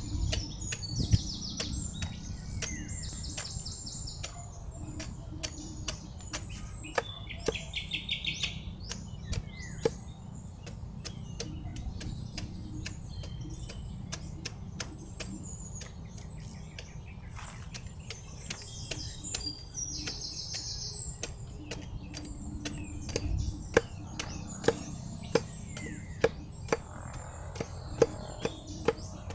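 Machete blade chopping and paring at the corm of a lakatan banana sucker: a run of short, sharp cuts that come faster and louder near the end. Birds chirp throughout.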